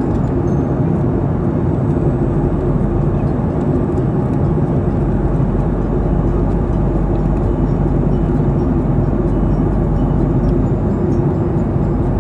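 Steady engine and airflow noise inside an airliner's cabin in flight: a deep, unbroken rush with faint steady hum tones.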